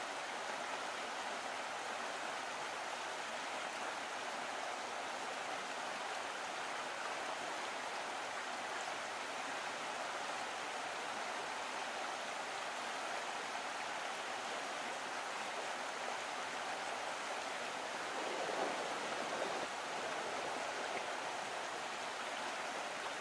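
Steady rush of a river flowing over a stony bed.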